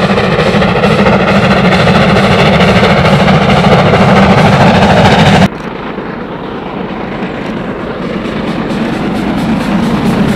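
Steam locomotive hauling a passenger train at speed, its exhaust beating rapidly and loudly. About five and a half seconds in the sound cuts abruptly to a second, quieter passage of a steam train approaching, growing steadily louder as it nears.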